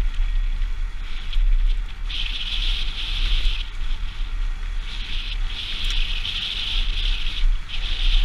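Mountain bike running fast down a gravel trail: wind rumbling on the microphone and tyres crackling over loose gravel, with a high hiss that comes and goes in stretches of one to two and a half seconds.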